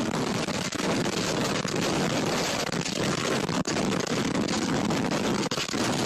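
EF-3 tornado winds roaring over a doorbell camera's microphone: a loud, steady rush of wind noise with a few brief dips.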